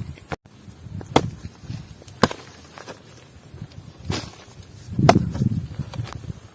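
Footsteps on dry ground with scattered sharp snaps and knocks, over a steady high hiss.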